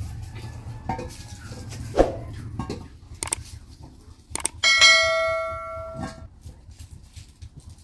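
A struck metal object rings once, clear and bell-like, about halfway through, then fades over a second and a half. Light knocks and clinks come before and after it.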